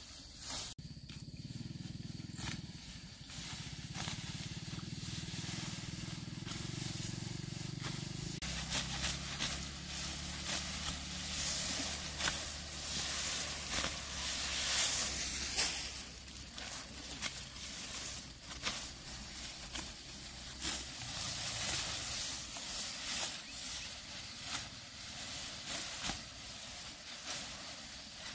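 Dry grass leaves rustling and crackling as they are cut and handled, with many short crisp snaps and a low steady hum underneath.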